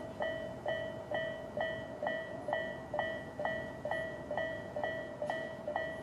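Japanese level crossing's electronic warning bell (Tobu 'sound A') ringing steadily at about two strikes a second, each a pitched ding that fades before the next.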